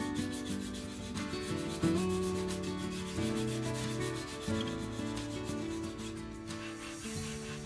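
Sandpaper rubbed by hand over a small wooden cutout in quick, even back-and-forth strokes.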